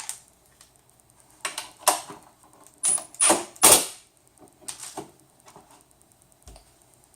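Small steel bolts and nuts clicking and rattling as they are handled and fitted to an aluminium frame: a string of sharp clicks, the loudest cluster about three to four seconds in, some with a brief metallic ring.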